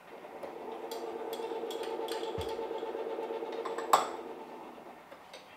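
Metal spoon stirring a small bowl of dipping sauce, with light clinks against the bowl and one sharper clink about four seconds in, over a steady hum.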